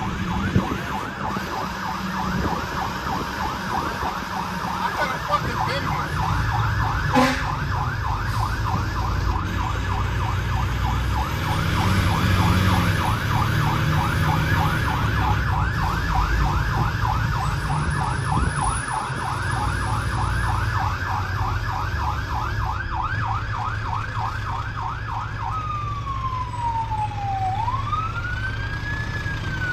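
Fire truck siren heard from inside the cab of a 2006 American LaFrance Eagle tower ladder on an emergency run: a fast yelp for most of the time, switching near the end to a slow wail that falls, rises and falls again. Underneath is the low running of the truck's Detroit Diesel Series 60 engine, and there is one sharp knock early on.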